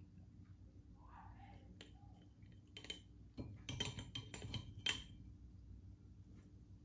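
Glass jar knocking and clinking lightly against a metal mesh strainer as wet herb leaves are shaken out of it: a few faint clinks about three seconds in, then a quick cluster of them over the next two seconds.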